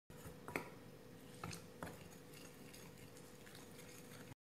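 Faint sounds of a hand mixing maida and cornflour with a little water in a bowl into a batter, with three soft clicks in the first two seconds, over a faint steady hum.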